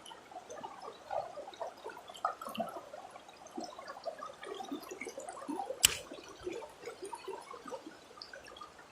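Fast-flowing river water gurgling and babbling over rocks, with a single sharp click about six seconds in.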